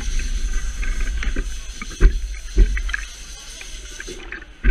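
Wind buffeting the action camera's microphone on a stationary kart, a heavy uneven rumble. A pair of dull knocks comes about two seconds in, and another right at the end, as the kart is handled.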